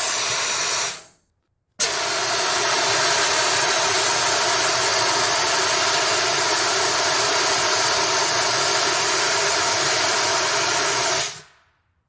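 Fire extinguisher discharging with a loud, steady hiss. A short spray dies away about a second in; then, after a brief silence, a second blast starts abruptly, holds steady for about nine seconds, and tapers off near the end.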